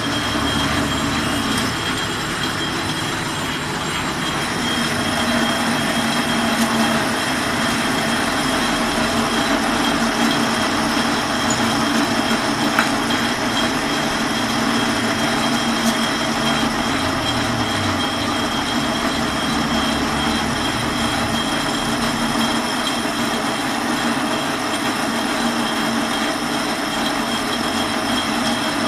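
Metal lathe turning a hard steel bar, the cutting tool stripping the bar's outer skin: a steady mechanical running noise with high, steady whining tones from the cut. It grows a little louder about four seconds in.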